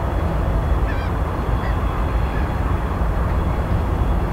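VL10 electric locomotive approaching slowly along the station tracks, a steady low rumble. A few faint short high chirps come about a second in.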